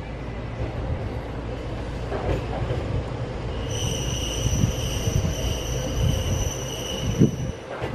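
KTR800-series diesel railcar KTR 802 running slowly into the station, its engine and wheels making a steady low rumble. About four seconds in a steady high-pitched squeal starts as the car slows, stopping just before the end, with a short knock near the end.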